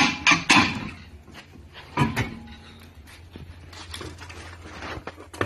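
Steel wheel and tyre pulled off a car's rear hub: a knock about two seconds in, followed by a brief ringing tone, over a low steady hum.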